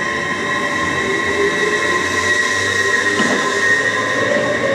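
A train running past, a loud steady rail noise with several sustained high-pitched squealing tones held over it.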